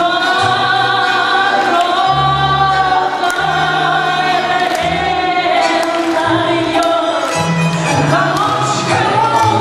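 Singing of a Russian romance with accompaniment from a Russian folk-instrument ensemble of balalaikas and bayan: long held vocal notes over a bass line that steps from note to note about once a second.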